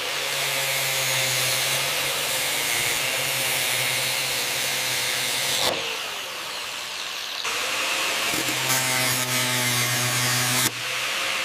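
A power tool running in two long runs, the first about six seconds and the second about three, each starting and stopping abruptly, with a dip between them. It makes a strong hiss over a steady low hum, and its pitch falls as it winds down near each stop.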